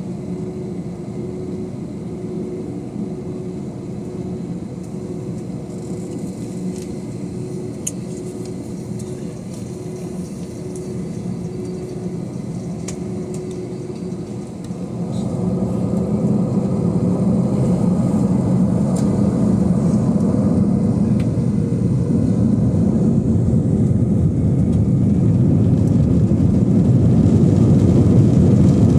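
Airbus A321 jet engines heard from inside the cabin: a steady hum at first, then about halfway through the engines spool up to takeoff power and the sound grows much louder, swelling on to the end as the takeoff roll begins.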